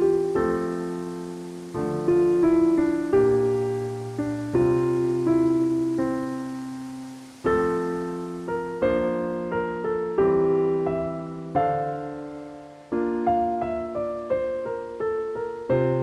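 Background music: slow, gentle piano, with chords and single notes struck every second or two and left to fade.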